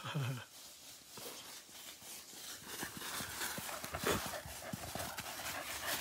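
A dog's paws running over dry fallen leaves: a quick, uneven patter of crunching steps that grows louder and denser as the dog comes closer.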